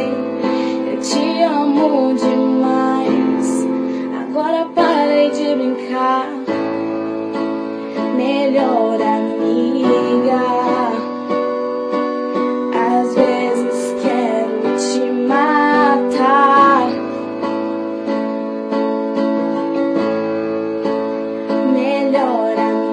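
Music: a song with a woman's voice singing wavering melodic lines over sustained instrumental chords.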